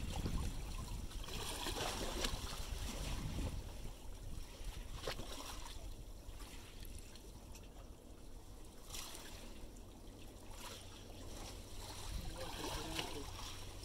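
Small estuary waves lapping and sloshing against a stone sea wall, an uneven watery wash with scattered small slaps. A low rumble fades out over the first few seconds.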